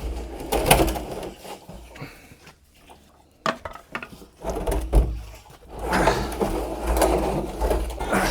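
Plastic chicken waterer being handled and worked at by hand: a few sharp knocks and clunks, then a stretch of rattling and scraping near the end.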